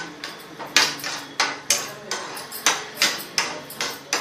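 A spoon knocking and scraping against a frying pan while cut almonds are stirred in hot ghee, about two or three sharp knocks a second, unevenly spaced.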